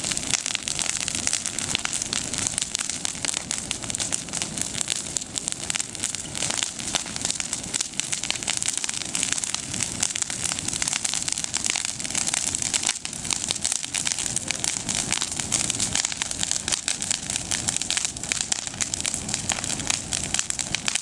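Bonfire of pruned olive branches with their leaves burning briskly, giving a dense, unbroken crackle of many quick pops.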